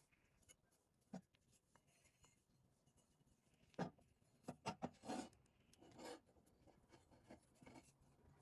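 Faint, scattered clicks and short scraping rubs of parts or tools being handled, with a cluster of louder scrapes about four to six seconds in.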